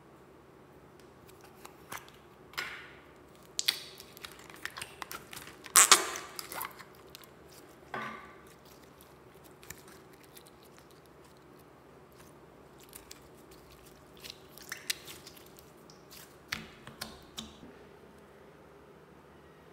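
Clear slime being squeezed and stretched in the hands, with a plastic slime tub handled: scattered crackles, clicks and squishes. The loudest is a sharp crackle about six seconds in. It goes quieter for a few seconds in the middle and again near the end.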